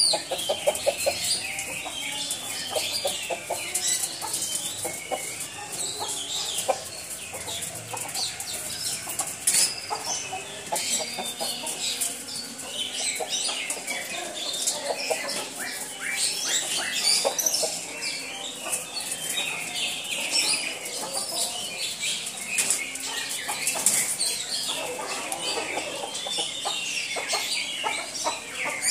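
Chickens clucking over a constant chatter of short, high-pitched chirps, with wing flapping.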